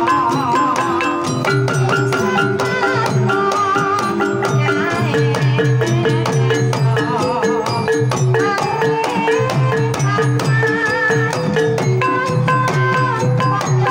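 Live Banyumasan gamelan playing a tayub gending: a kendang barrel drum is played by hand under steady strokes on bronze kettle gongs and held metallophone notes. A female sinden's wavering vocal line runs over the ensemble.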